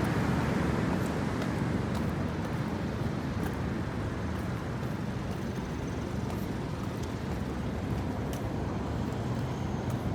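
Street traffic noise: a vehicle passing and fading over the first few seconds, then a steady hum of traffic with a few faint ticks.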